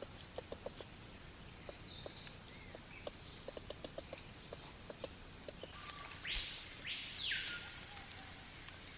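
Tropical rainforest ambience: faint bird chirps and scattered light clicks, then about six seconds in a steady high-pitched insect buzz starts suddenly and holds, with a bird call rising and falling over it.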